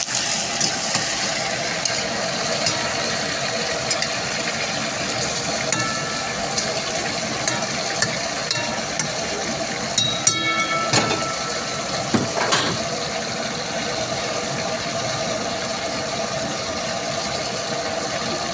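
Chicken pieces sizzling and crackling as they fry in hot oil in a karahi, over a steady background roar. A few sharp knocks and a brief pitched tone about ten seconds in.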